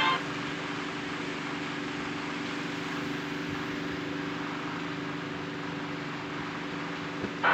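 Steady low hum of several held tones under an even hiss, unchanging throughout, with one faint click near the end.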